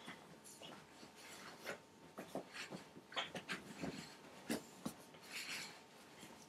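Bull terrier playing rough on a couch, snapping at a hand: irregular short scuffles and rubbing of a duvet, with a few sharp clicks of its jaws and the dog's breathing.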